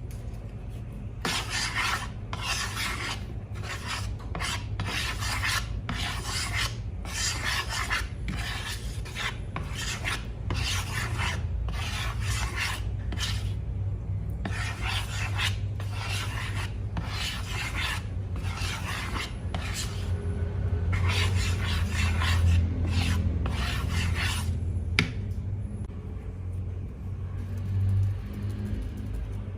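Repeated rasping, rubbing strokes, about one every half second, with a couple of short pauses, stopping about 25 seconds in. A steady low hum runs underneath.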